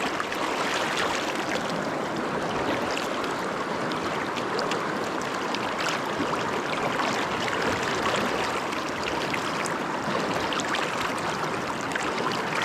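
Fast river current rushing and splashing around the wader, a steady water noise with small splashes scattered through it.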